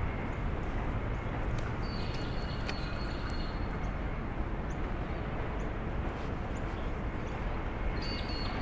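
Outdoor city-park ambience: a steady low hum of city traffic. High bird calls come twice, about two seconds in and again near the end.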